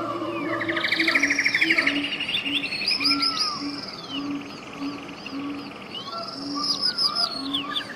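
Several birds singing at once: fast buzzy trills and sweeping down-slurred whistles. Under them a short low hooting note repeats steadily, about once or twice a second.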